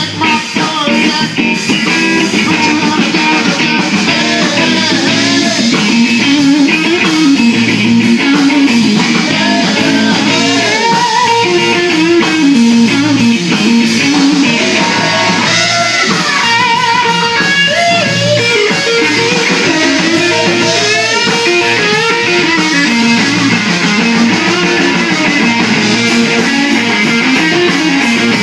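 Live blues band playing an instrumental passage: an electric guitar plays a lead line with bending notes over bass guitar and drums.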